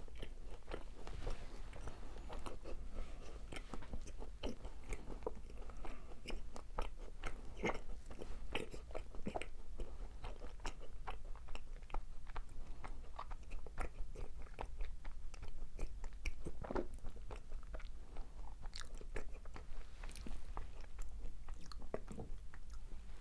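Close-miked chewing of macarons: the crisp meringue shells crunching and crackling between the teeth, with soft, irregular mouth clicks as the chewy filling is worked.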